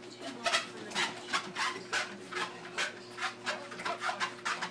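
Bulldog working on a running treadmill. The treadmill hums steadily under a quick rhythmic rasping from the dog, about three to four strokes a second.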